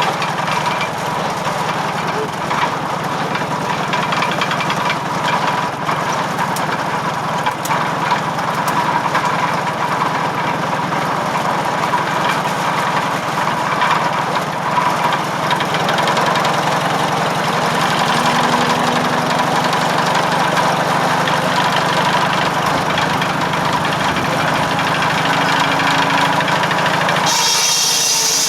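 McCormick W-4 tractor's four-cylinder engine running steadily, driving a belt-powered circular firewood saw. About a second before the end, the saw blade bites into wood with a high-pitched cutting whine.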